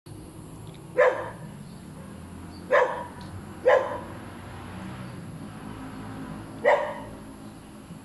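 A dog barking: four short, sharp single barks spaced irregularly, two close together in the middle and one more a few seconds later.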